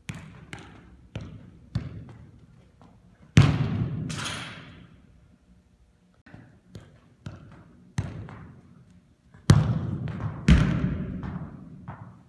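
Soccer ball being juggled and kicked on artificial turf. There are light touches about every half second, then three loud thuds of the ball, each echoing through a large indoor hall.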